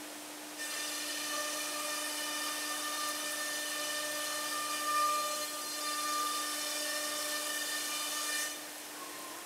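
Spindle head of an SCM Startech CN Plus CNC boring machine running as it machines a wood panel: a steady high whine that starts about half a second in, rises briefly about halfway, and cuts off near the end, over a low steady machine hum.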